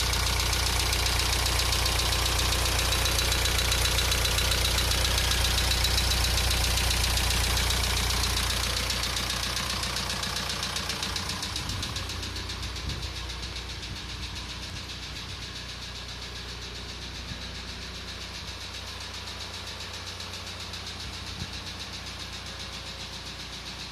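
Audi A3 8L 1.9 TDI four-cylinder diesel engine idling steadily with a rhythmic knocking from the top of the engine. The mechanic takes the knock for a worn camshaft lifter (follower). The sound grows fainter from about nine seconds in.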